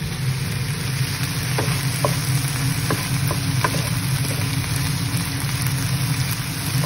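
Chicken and vegetables sautéing in a nonstick frying pan, sizzling as they are stirred with a wooden spatula. The spatula taps the pan several times in the first few seconds, over a steady low hum.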